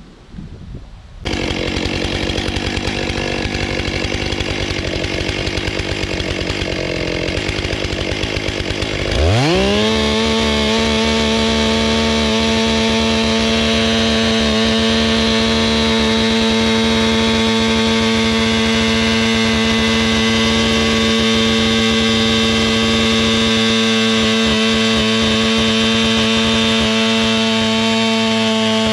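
Stihl MS 661 C-M two-stroke chainsaw running at a low speed, then revving up sharply about nine seconds in. It is held at a steady high-pitched full throttle while the bar cuts into a hard beech trunk.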